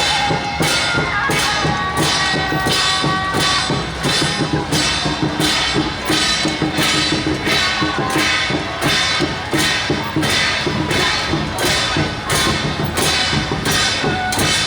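Temple procession percussion band playing a steady beat: cymbal crashes about every two-thirds of a second over drumming, with a few held high melody notes in the first few seconds.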